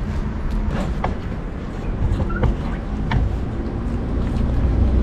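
Steady low rumble, like a motor vehicle running, with scattered small clicks; it grows louder towards the end.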